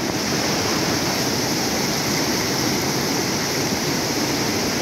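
Muddy river in sudden flood churning over rocks and rapids: a steady, loud rush of fast water.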